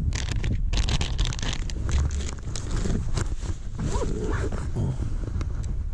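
Resealable plastic soft-bait bag being handled: a rapid, irregular run of crinkles and crackles as the zip-seal bag is worked, over a low rumble of wind on the microphone.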